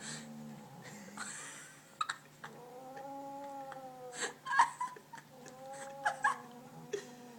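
Domestic cat yowling in two drawn-out, wavering calls, with sharp knocks and scuffs between them, the loudest knock about four and a half seconds in.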